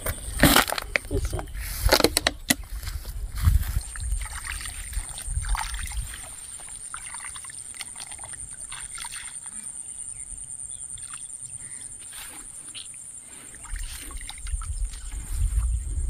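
Sloshing and splashing of a person wading through shallow marsh water and weeds, with irregular knocks and rustles at first. A steady, high-pitched insect buzz comes through in the quieter middle stretch.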